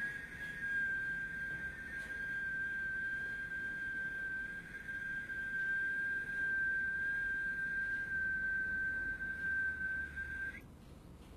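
One long, steady whistled note at a single high pitch, held for about ten seconds and breaking off near the end with a slight upward slide.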